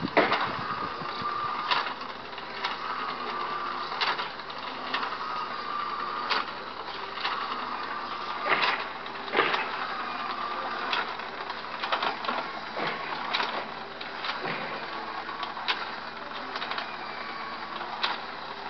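Small electric rotisserie motor running a home-made spit over charcoal, a whine that rises and falls in pitch about every two seconds, with sharp clicks scattered through it.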